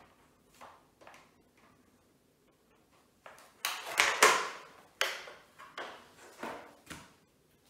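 Plastic Scalextric track sections being handled and fitted together: a few soft taps, then from about three seconds in a string of sharp plastic clacks and knocks.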